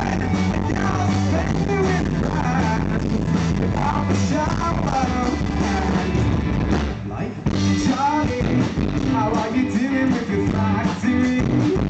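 A live rock band playing an upbeat song with electric guitar through a loud PA, recorded right beside the speakers so it sounds harsh and overloaded. The sound drops briefly about seven seconds in, then comes back.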